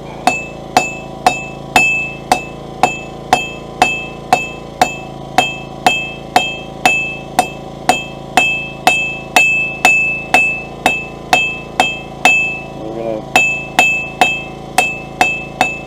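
Hand hammer striking a steel bar on an anvil while squaring its tip, in a steady rhythm of about two blows a second. Each blow leaves a short high ring.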